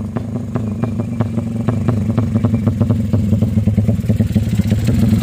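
Engine running hard with a rapid, crackling firing rhythm, getting steadily louder as it revs up during an engine power test.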